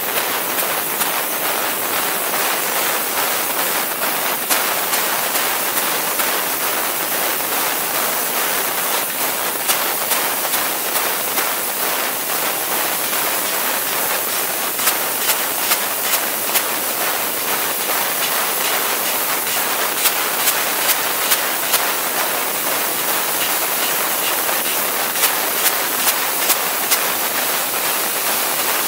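Fiber laser tube cutting machine fly-cutting holes in a metal tube: a steady, loud hiss from the cutting head, broken by sharp clicks that come in quick runs of several at a time.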